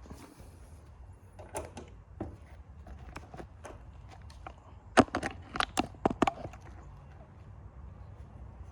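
Scattered sharp clicks and knocks of hand tools and loose parts being handled, with a quick run of about seven louder knocks around five to six seconds in.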